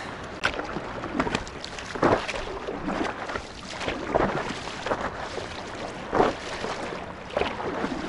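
Sea water splashing against a stand-up paddleboard's nose as it is paddled out through small waves, a splash every second or two over a steady wash of water.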